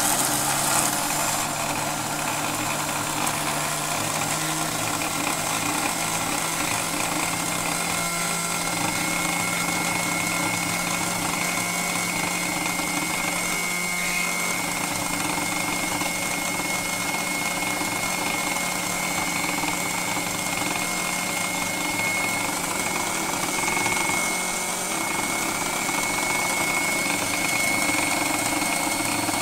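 Electric kitchen mixer grinder running steadily, its blade chopping moringa leaves in a stainless steel jar.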